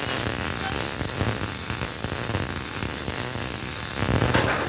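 Automatic welding on a steel tank bottom: a steady hiss with a low hum underneath, swelling louder about four seconds in.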